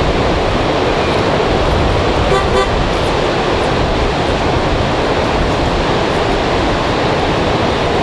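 Steady wash of ocean surf. About two and a half seconds in comes a short, honk-like pitched toot.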